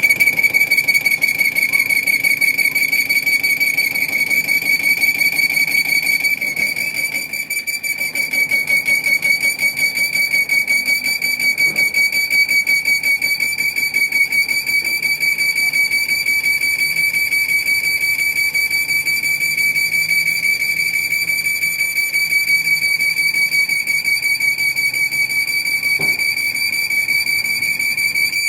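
A steady, high-pitched whistling whine with a fast, even pulsing, holding one pitch throughout.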